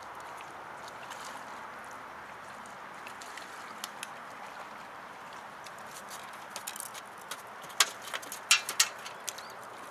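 Steady outdoor background hiss, then a cluster of sharp clicks and knocks in the last few seconds, loudest about eight and a half seconds in, while a hooked crucian carp is played on a long float rod.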